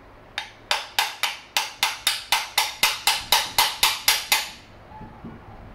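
Small tapping hammer striking the aluminium body of a Predator carburetor in a steady run of about sixteen sharp taps, roughly four a second, stopping about four and a half seconds in. The tapping works at a plate whose gasket has been sealed with silicone, to break it loose.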